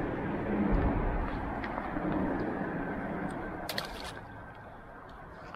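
A passing vehicle: a broad rumbling noise that swells over the first two seconds and then slowly fades. A quick run of sharp clicks comes about two-thirds of the way through.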